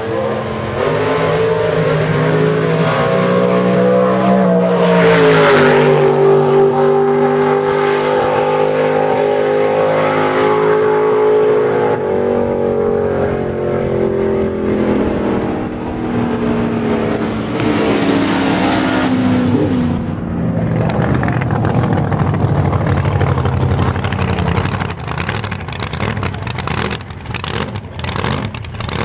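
Drag-racing car at full throttle down the strip: a loud, steady engine note that climbs, dips in pitch about five seconds in, then holds and fades into the distance over the next fifteen seconds. From about twenty seconds in, a nearby drag-racing pickup's engine with open headers runs with a rapid, crackling beat that grows louder.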